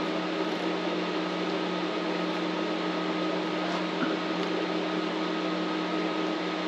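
Steady mechanical hum with an even hiss, a machine running continuously, with a couple of faint soft knocks.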